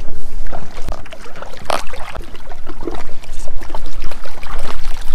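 Wind buffeting the microphone with a steady rumble, over scattered short knocks and scrapes, the sharpest about two seconds in.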